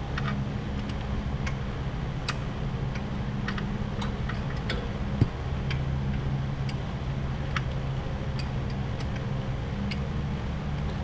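Ratchet wrench clicking, single irregular clicks as it is worked slowly and gently on a nut welded onto a broken exhaust manifold bolt to back the bolt out, over a steady low hum. One sharper knock about five seconds in.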